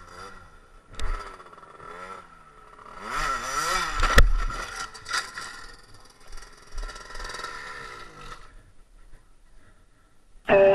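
A moped engine revving up and down with its throttle stuck open, then a loud crash about four seconds in as the bike goes down, followed by the moped scraping and clattering along the asphalt on its side while the engine keeps running. The noise dies away over the last couple of seconds.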